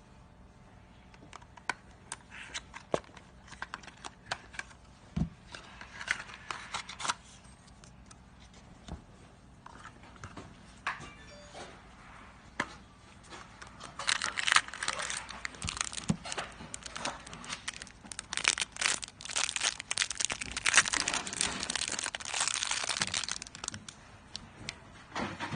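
Crinkling and tearing of crinkly material being handled, with many sharp clicks and rustles; it becomes much louder and denser about fourteen seconds in.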